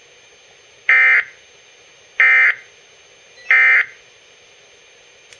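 Weather radio sounding three short, identical buzzing bursts of SAME digital data tones, about a second apart. Coming straight after the bulletin, they are the end-of-message code of the weather broadcast.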